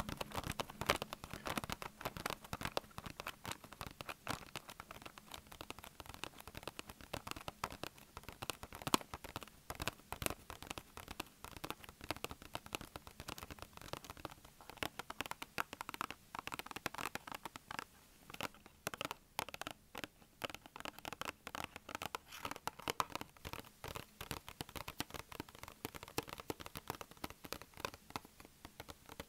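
Fingernails tapping and scratching on a small cardboard box in quick, dense taps.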